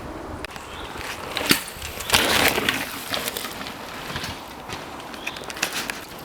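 Downhill mountain bike rolling down a woodland dirt trail with no chain fitted: tyre noise with scattered rattles and knocks, and a louder rush about two seconds in.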